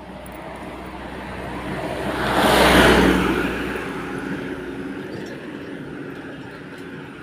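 A motor vehicle passing by, rising to its loudest about three seconds in and then fading, with another engine hum coming up near the end.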